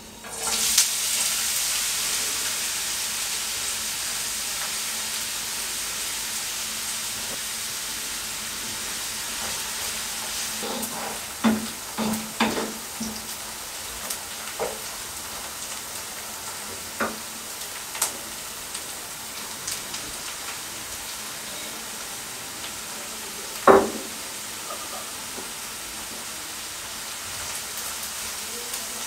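Diced onions dropping into hot vegetable oil in a nonstick frying pan and sizzling. The sizzle starts suddenly and slowly eases off as the onions fry. A wooden spatula stirs them, with scattered knocks against the pan, the loudest about three quarters of the way through.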